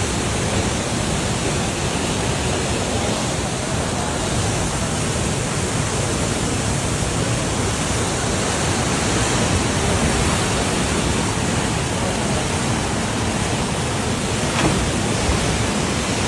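Flooded Parvati River rushing past in spate: a steady, loud wash of water noise with no letup.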